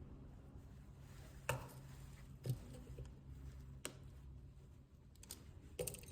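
Small repair tools and parts being handled on an iPhone XR during a battery replacement: a few sharp, light clicks and taps spread over several seconds, over a faint steady hum.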